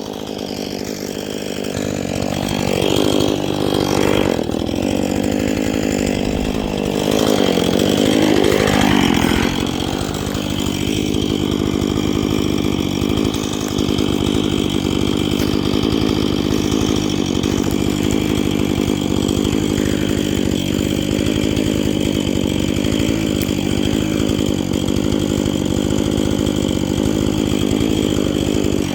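Chainsaw revving up twice, then held at a steady high speed as it cuts through the tree.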